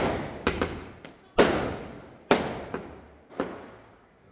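Firecrackers bursting: six or so sharp bangs at uneven intervals of about half a second to a second, each fading out in an echo.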